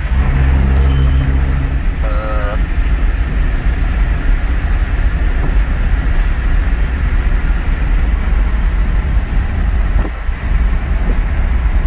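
Cab interior of a moving GM S-series mini truck at road speed: steady engine drone mixed with road and wind noise. A low, even engine tone stands out in the first two seconds.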